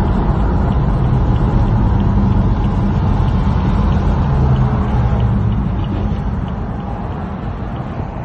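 Car driving at highway speed, heard from inside the cabin: a steady low rumble of road and wind noise, easing off a little near the end.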